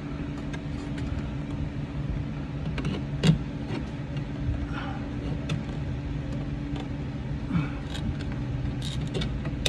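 Steady hum of an electric fan running, with scattered small clicks and fabric rustles as headliner fabric is worked off its retaining teeth with a screwdriver; one sharper click about three seconds in.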